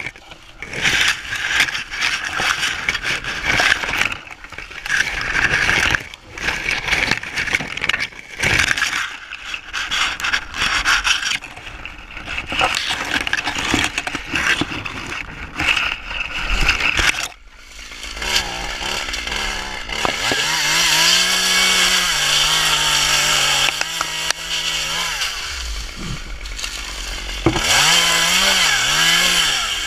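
Dry dead palm fronds rustling and crackling for the first half. A little past halfway a small top-handle chainsaw starts running, its engine pitch rising and falling as it revs and cuts through dead Mexican fan palm fronds.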